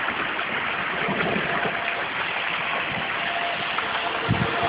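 Steady rush of heavy rain and running floodwater, with the faint steady tone of a distant tornado siren coming in about a second in. A short low thump near the end.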